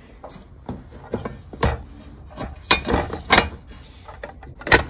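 Hand handling and opening the hinged cover of an outdoor air-conditioner pull-out disconnect box: a run of knocks and clicks with rubbing between them, the loudest knock near the end.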